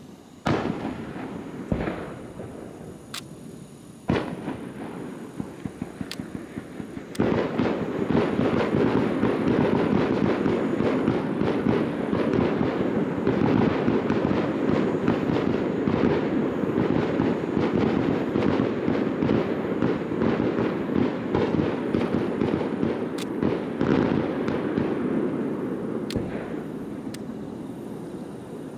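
Aerial fireworks going off: a few separate bangs about two seconds apart, then from about seven seconds in a dense barrage of rapid overlapping bangs and crackle that thins out near the end.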